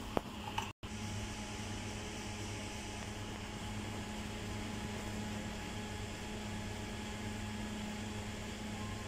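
Steady electric hum and fan whir of running equipment. There is a short click near the start and a brief drop-out in the sound just under a second in.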